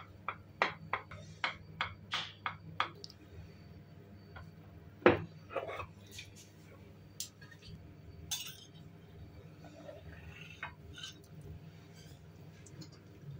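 Knife and utensils clinking against a dessert tray and dishes as a tray dessert is cut and portioned: a run of quick taps, about three a second, over the first few seconds, a louder knock about five seconds in, then scattered light clinks.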